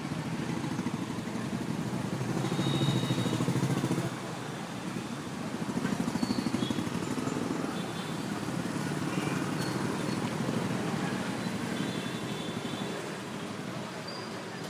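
City street traffic: a steady rumble of passing vehicle engines and tyres that swells as vehicles go by, about three and six seconds in, with a few brief faint high-pitched tones over it.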